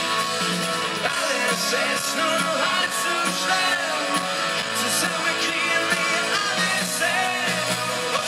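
Live pop-rock band playing: electric guitars and drums, with singing over them.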